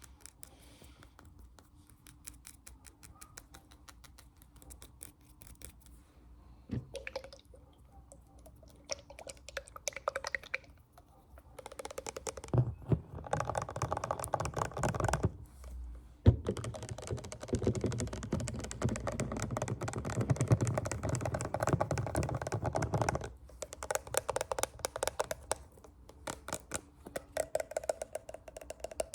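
Fast finger tapping, a dense run of quick clicks that grows louder and fuller partway through, pauses briefly, then thins out again near the end.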